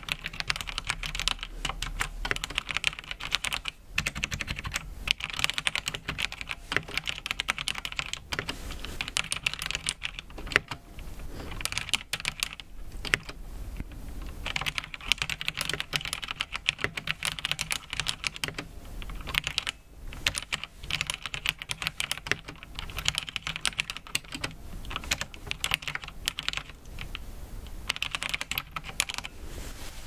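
Typing on a mechanical keyboard with brown tactile switches: runs of quick keystroke clicks, broken by a few short pauses.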